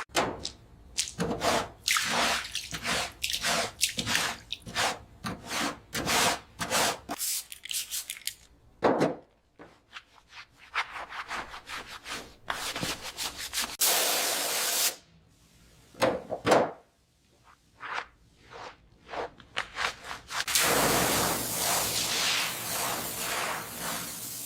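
Quick, repeated rubbing strokes on a surface, many in a row with short gaps, then a steady hiss for the last few seconds.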